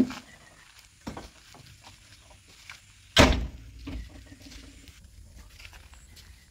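Glass cab door of a JCB 3DX backhoe loader knocking and banging against its steel frame. There is a sharp knock at the start and a lighter one about a second in. The loudest slam comes a little past three seconds, with a short ring after it.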